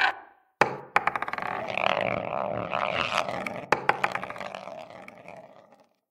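A short noisy burst, then rolling balls rumbling along a track with a run of sharp clacks and clicks, fading out shortly before the end.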